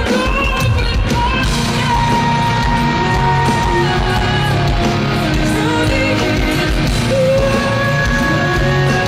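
Live rock band playing loud, with a woman's high lead vocal singing over electric guitar, heard from the audience in an arena. A long held sung note runs from about a second and a half in to about four seconds.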